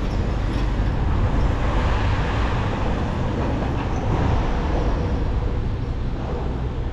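City street traffic noise: cars on the road making a steady rumble.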